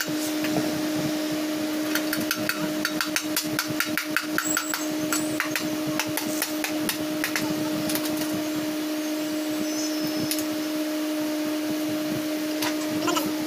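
Hammer tapping on a motorcycle engine's aluminium crankcase: a quick run of light taps, several a second, then a few scattered taps, seating the crankcase halves together during engine assembly. A steady hum sounds under the taps.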